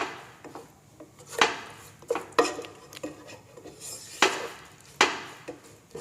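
A cooking spoon knocking and scraping against a pan as chicken and sauces are stirred, with about six sharp knocks spaced unevenly through.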